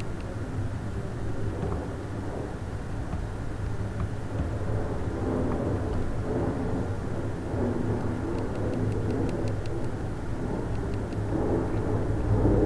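Steady low background rumble with a hum underneath, and a few faint clicks about two-thirds of the way in.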